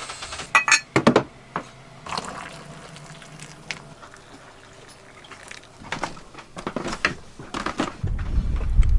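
Water splashing and slapping against the hull of an anchored sailing boat in a bouncy anchorage, in a few sharp splashes with quieter lapping between. A low rumble starts near the end.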